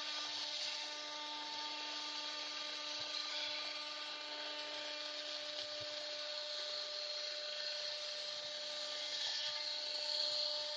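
CNC router spindle running at a steady pitch while its small end mill cuts an aluminium sheet, a steady whine over the hiss of the cutter in the metal. It grows slightly louder near the end.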